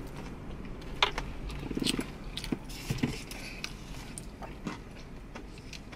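Close-up eating sounds: chewing and biting into fried chicken wings, with wet mouth smacks and a few sharp clicks scattered through. A short, low, buzzing rasp sounds just under two seconds in.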